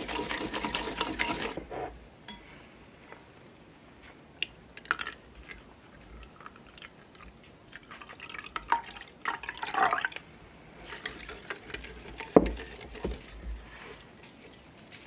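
Straw whisk beating eggs in an earthenware bowl, a fast clicking that stops about two seconds in. Midway, milk is poured into the bowl, followed by a single knock and a short spell of lighter whisking.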